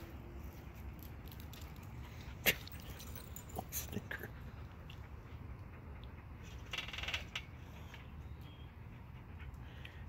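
Small dogs playing with a toy: one sharp click about two and a half seconds in, a few lighter clicks soon after, and a brief rattle about seven seconds in, over a low steady hum.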